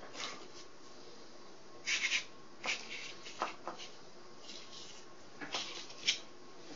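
Paper and thin balsa wood strips rustling and sliding under hands on a cardboard building board, in several short, soft scrapes.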